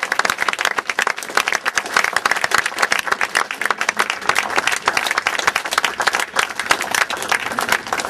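A small crowd applauding: many hands clapping in a dense, steady patter.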